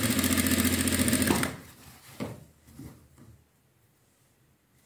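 Industrial sewing machine running a line of stitching, stopping about a second and a half in. A few faint handling sounds follow, then near silence.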